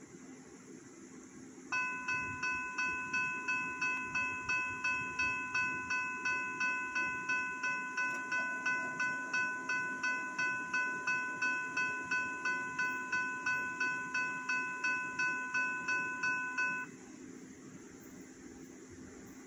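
Railroad crossing warning bell ringing in a steady, even rhythm of about two and a half strikes a second while the crossing gates come down; it stops about seventeen seconds in, once the gate arms are down.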